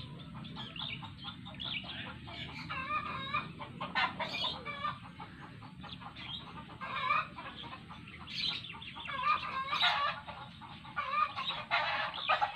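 Chickens clucking, a steady run of short high calls one after another, over a low steady background noise.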